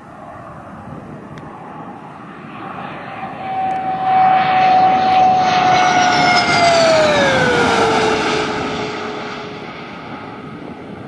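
JF-17 Thunder fighter's single Klimov RD-93 turbofan whining as the jet lands and rolls past. It grows louder over a couple of seconds, holds, then the pitch drops as it goes by and the sound fades.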